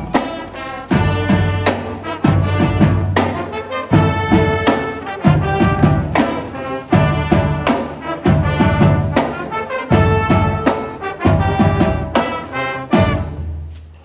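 High school marching band's brass section playing live: trumpets, saxophones and sousaphones in short, punchy accented phrases over a low bass line. The playing dies away just before the end.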